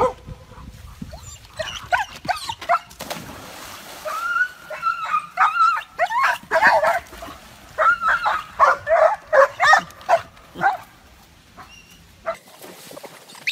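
Dog barking and whining excitedly in runs of quick high yips, with one drawn-out whine about four seconds in.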